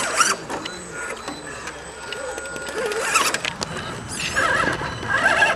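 Small electric motor and gearbox of a scale RC crawler truck whining as it crawls over rough ground, the pitch changing with the throttle.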